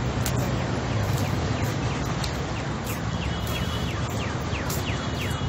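City street noise: a steady low rumble with scattered small clicks. From about three seconds in comes a run of short, high, falling chirps.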